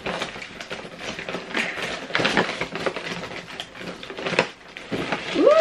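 Rustling and crinkling of a plastic bag stuffed with paper and craft scraps as it is lifted and handled, with scattered small knocks and taps.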